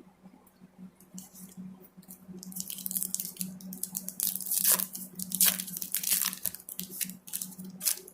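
A trading-card pack wrapper being torn open and crinkled by hand, with quick sharp crackles that grow denser and louder from a few seconds in.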